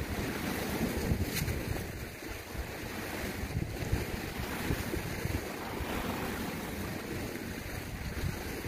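Small sea waves washing and breaking against shoreline rocks, with wind buffeting the microphone.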